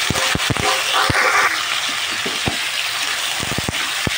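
Skin-on chicken pieces sizzling in hot oil in a kadhai, with many sharp crackles of spitting oil and a brief louder burst of sizzle about a second in; a metal spatula stirs them near the end.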